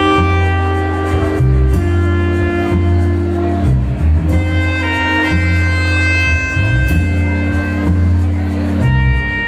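A live band playing loud through a venue PA: a deep bass line that changes note every second or two, under sustained keyboard and saxophone notes.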